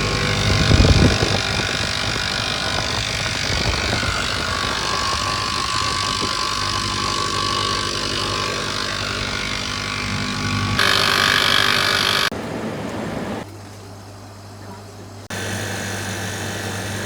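Failing refrigeration compressor of a commercial display freezer running with a loud, steady hum, a brief louder noise about a second in. The sound changes abruptly several times near the end, as between separate short clips. The compressor is noisy and not pumping: its valve plate is broken.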